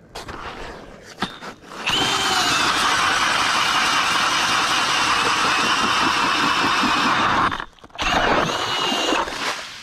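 Cordless drill spinning an ice auger through lake ice: the motor whines and the blades cut for about six seconds, stop briefly, then run again for about a second and a half.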